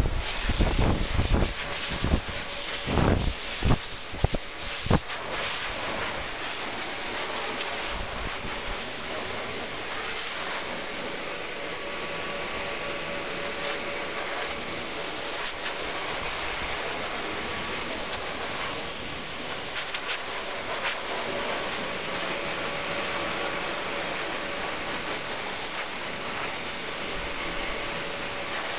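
Dog blow dryer blowing a steady, strong hiss of air with a faint steady motor whine underneath. In the first five seconds the blast buffets the microphone in gusts.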